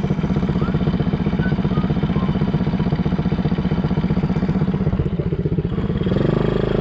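A 110cc ATV's small single-cylinder engine running with a fast, even chugging beat. About six seconds in it picks up to a smoother, higher and slightly louder note as it revs.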